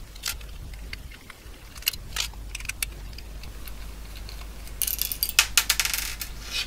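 Small screws being undone with a screwdriver from a tape drive's circuit board and set down on a wooden bench: light scattered metal clicks and scrapes, with a quick run of louder rattling clicks about five seconds in.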